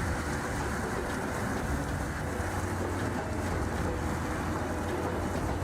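A heavy machine's engine running steadily under a broad, even rush of noise.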